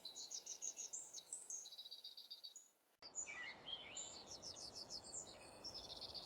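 Small songbirds chirping and trilling in quick runs of short high notes, faint, with a brief dropout about halfway through.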